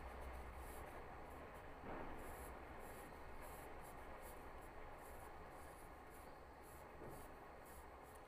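Graphite pencil scratching faintly on drawing paper in short repeated strokes as lines are sketched.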